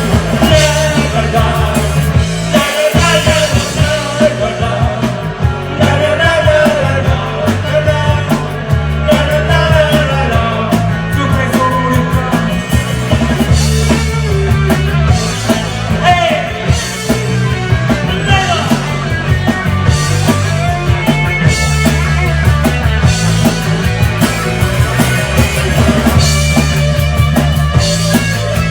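Rock band playing a song, with a singer's voice over a steady bass line and drums.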